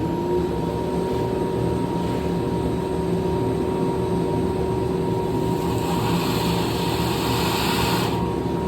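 Shop vacuum starting up and running steadily with a whine. Near the end, a louder rushing hiss of air and shavings lasts a couple of seconds, then cuts off suddenly.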